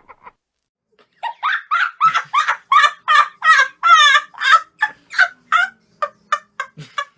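Comedy animal sound effect, a turkey-like gobbling call: a run of short, quick calls, each falling in pitch, about three a second, growing fainter toward the end.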